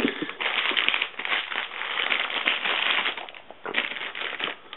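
Packaging being unwrapped and handled: a dense, crackly rustle with a short pause about three and a half seconds in.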